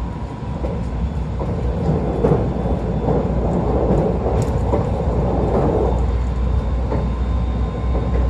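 Running noise heard inside a JR West 681 series electric motor car: a steady low rumble of wheels on rail with a thin steady high tone.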